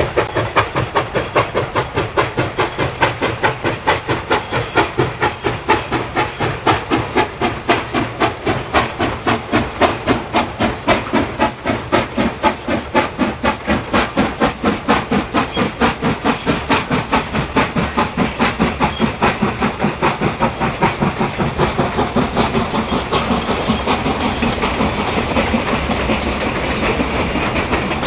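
Steam locomotive No. 60 working, its exhaust chuffing in a fast, even beat of about three to four chuffs a second, with hiss. The beats get quicker and softer over the last few seconds.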